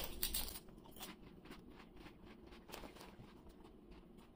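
A crisp potato chip bitten with a sharp crunch, then chewed with a string of faint, irregular crunches.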